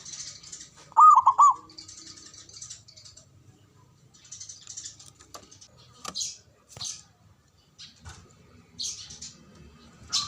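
Zebra dove (perkutut) giving a quick run of about four cooing notes a little after one second in, the loudest sound here. Fainter high chirps of small birds and a few sharp clicks come and go around it.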